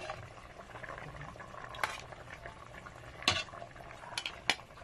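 Chicken afritada simmering in a stainless steel pot, its tomato sauce bubbling steadily, while a metal ladle stirs it and clinks sharply against the pot four times.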